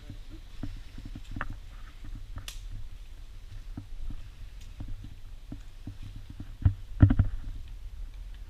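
Handheld camera handling noise and footsteps over debris and undergrowth: irregular clicks and knocks over a low rumble, with a cluster of louder knocks near the end.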